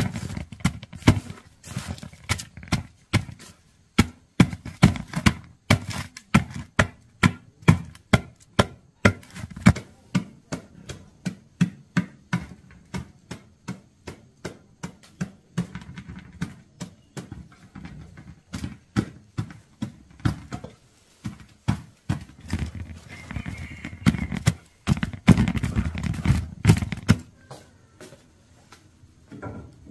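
A wooden pestle pounding dry crumbly lumps in an aluminium pot: a steady run of dull thuds, about two a second, that stops shortly before the end.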